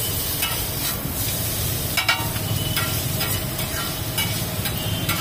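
Chowmein noodles sizzling on a large flat tawa griddle while metal spatulas toss and scrape them, with repeated clicks and clatters of metal on metal, a quick cluster of them about two seconds in.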